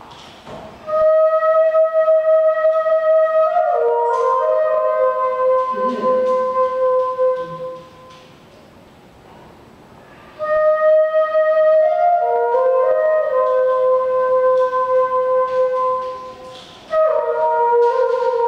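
Flute-like wind tones playing slow held notes in phrases, each phrase stepping down through a few overlapping pitches. The phrases break off for a couple of seconds between them.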